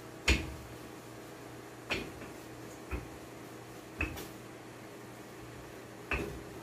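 Five sharp knocks on the kitchen work counter while flatbread dough is rolled out, the first the loudest, over a steady low hum.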